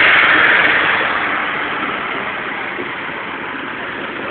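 Motor vehicle engine and road noise, a steady rush that eases off over the first two seconds and then holds level.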